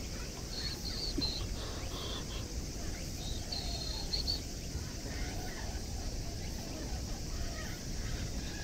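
Outdoor ambience: a steady low rumble of wind, with short, high bird chirps in two small clusters, around the first second and again about three to four seconds in.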